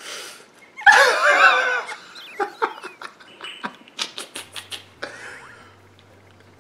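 A sharp whack from a big pleated paper fan about a second in, then a second of shrill wavering cries and laughter. A quick run of short sharp sounds follows near the middle.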